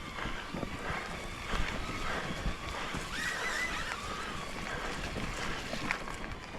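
Mountain bike rattling and knocking over a rough trail, with a brief high wavering squeal about three seconds in.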